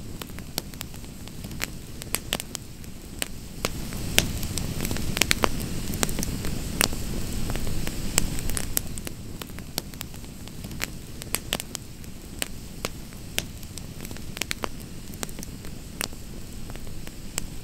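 Wood campfire crackling, with frequent sharp pops over a low rushing sound that swells for a few seconds near the middle.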